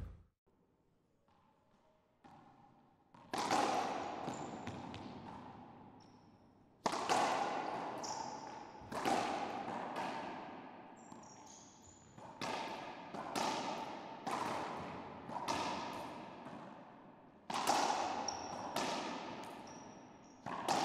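Racquetball rally: sharp smacks of the ball off racquets and the court walls, roughly one a second, each ringing out in the enclosed court's echo, with brief squeaks of court shoes on the hardwood floor. The rally starts about three seconds in, after near silence.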